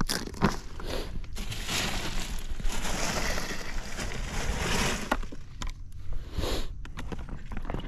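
Rustling and crinkling from a soft-sided tackle bag being rummaged through by hand, a dense crackling run of about three and a half seconds with a few sharp clicks and knocks before and after it.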